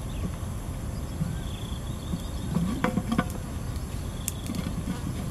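Clay cooking pot's lid knocking against the pot's rim a few times, about three seconds in, with a brief ceramic ring, as it is worked loose and lifted. Short high chirps sound in the background.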